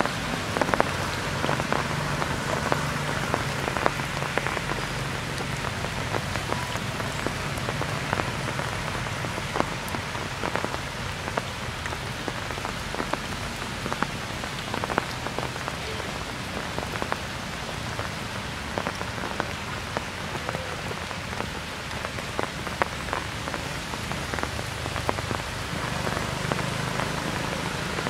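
Steady rain falling, a constant hiss with many separate drops striking close by.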